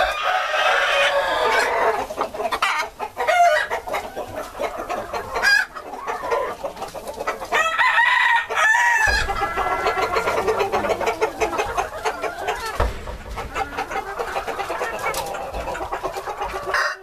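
A flock of Golden Phoenix bantam chickens clucking and calling over one another, with a bantam rooster crowing about eight seconds in.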